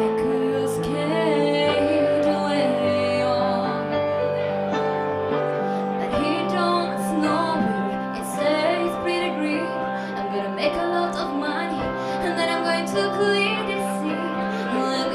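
A woman singing live into a handheld microphone over an instrumental accompaniment of sustained chords, with vibrato on her held notes.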